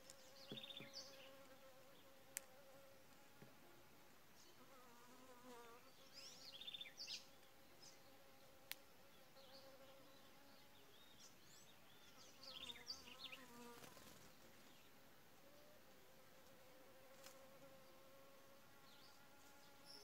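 Faint steady buzzing of a flying insect, wavering in pitch twice as it moves about, with faint bird chirps now and then and two sharp clicks.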